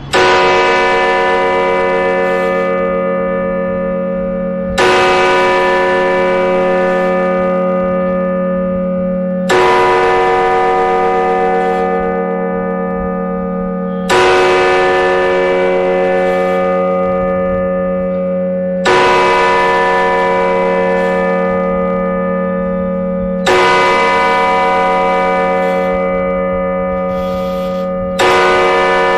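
The hour bell of the Shanghai Custom House clock tower striking the hour, heard close up inside the bell house: seven identical strokes about five seconds apart, each ringing on and fading slowly until the next.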